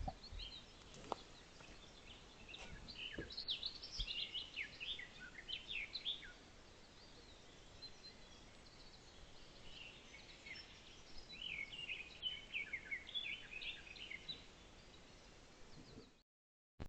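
Wild songbird singing in two spells of quick, high chirping notes over faint outdoor hiss; the sound cuts out abruptly near the end.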